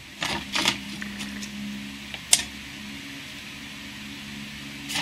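Light plastic clicks and taps as a round plastic CD spindle case is set down and positioned on a steel knife blank, with one sharp tap about two seconds in and another near the end, over a steady low hum.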